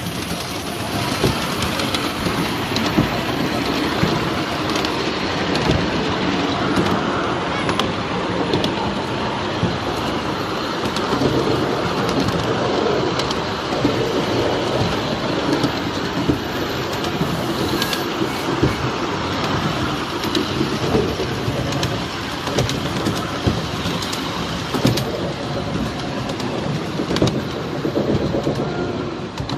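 Large model train running on its track: a steady rolling rumble broken by many short clicks from the wheels.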